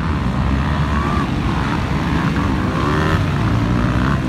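Motocross dirt bikes racing on a dirt track, their engines revving up and down.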